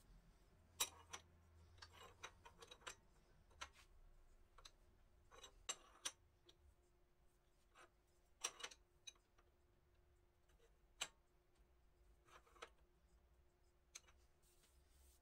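Faint, irregular light clicks and taps, about fifteen in all and unevenly spaced, over a faint steady hum.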